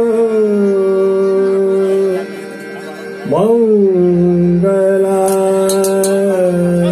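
A male classical vocalist singing long held notes of Raag Hansadhwani over harmonium accompaniment. The notes slide slowly down in pitch; about two seconds in the sound drops for a moment, then the voice swoops up and back down into another long held note.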